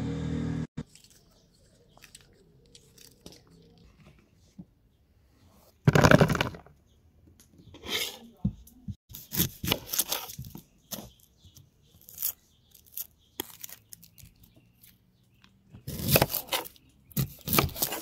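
Background music cuts off just under a second in. Then come irregular bursts of kitchen food-preparation noise, crunching, tearing and clattering, with a loud burst about six seconds in and a cluster of them near the end.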